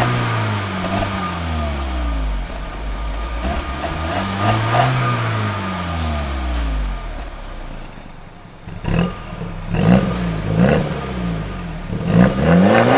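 Exhaust of a BMW 1.6-litre, 136 hp turbocharged four-cylinder petrol engine, revved while the car stands still. First, with the aftermarket vacuum exhaust flap closed, the revs rise and fall slowly. After a quieter moment about eight seconds in, the flap is open and the engine gives a run of quick, louder throttle blips.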